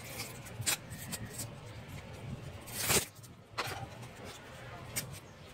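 Plastic opening pick scraping along the edge of a phone as its casing is pried apart, with a few short scrapes and clicks of the clips letting go; the loudest comes about three seconds in.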